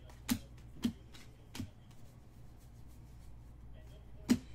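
Trading cards being handled: four sharp taps or snaps, three close together in the first two seconds and one near the end, over a steady low hum.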